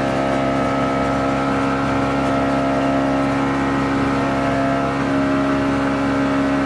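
Boat engine running steadily at an even speed while the boat travels, heard from on board: a constant, unchanging engine hum.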